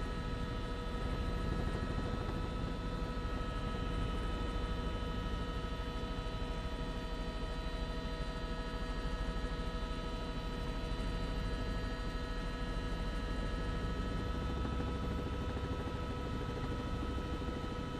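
Steady drone of a helicopter heard from inside the cabin: a low rumble with several steady whining tones over it, unchanging throughout.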